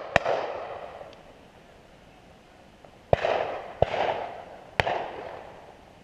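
Four shotgun shots: one just after the start, then three about a second apart from around three seconds in. Each report rolls away in an echo.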